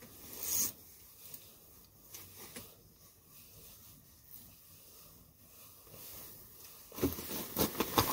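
Faint rustling and handling sounds of heavy winter clothing, with a short rustle about half a second in and a busier run of rustles and clicks near the end as the person moves.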